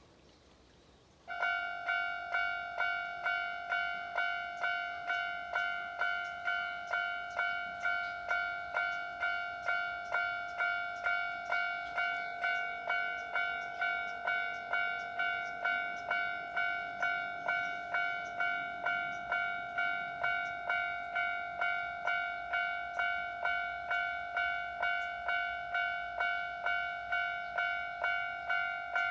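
Japanese railway level-crossing warning bell starting up about a second in and ringing 'kan-kan' in an even, steady rhythm of repeated ringing tones, signalling that a train is approaching.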